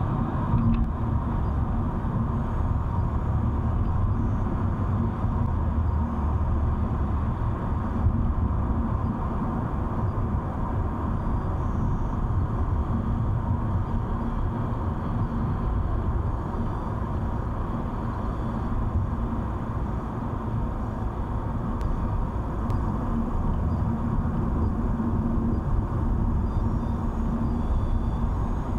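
Car cabin noise while driving on a road: a steady rumble of tyres and engine, with a faint steady hum.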